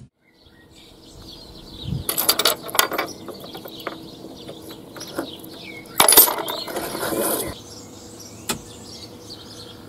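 Keys jingling and working the door lock of a Moskvich 412: two bursts of metallic rattling and clicking. A single sharp click near the end as a pushbutton on the car radio is pressed.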